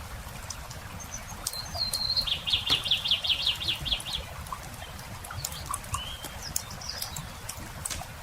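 Campfire crackling with scattered sharp pops, while a songbird sings: a short high note, then a rapid trill of about a dozen notes lasting about two seconds, the loudest sound here. A few brief faint chirps follow.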